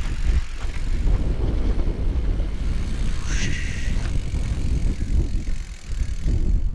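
Bicycle tyres rolling over sand and rough ground, with a jittery, bumpy rumble from the ride on the microphone. A brief high squeak comes about three seconds in.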